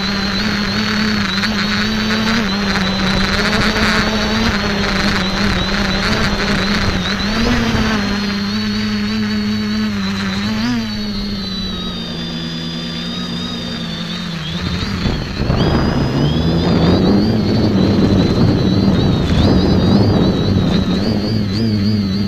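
X550AIOP quadcopter's electric motors and propellers buzzing, heard from a camera on the craft itself, with a high motor whine above the propeller hum; the pitch wavers as the throttle changes. About 15 seconds in, the sound dips briefly, then grows louder and rougher.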